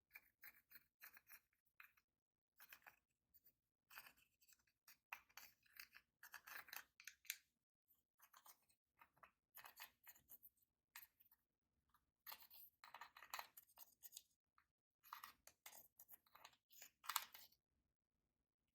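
Slime being kneaded and stretched by hand: runs of short, sticky crackling clicks, broken by brief pauses every few seconds.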